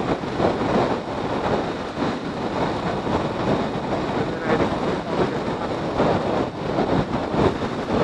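Wind rushing and buffeting over an action camera's built-in microphone on a moving motorcycle at highway speed, mixed with the bike's running and road noise. A loud, unpitched rush that swells and dips irregularly.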